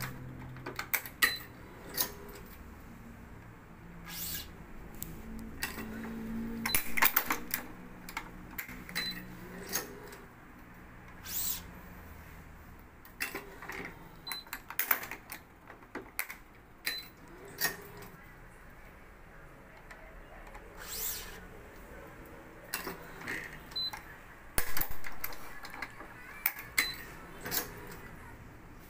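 Electronic badminton stringing machine at work: irregular sharp clicks and clacks of its string clamps and tension head as the racket's strings are pulled tight and clamped one by one. Short high beeps come every few seconds.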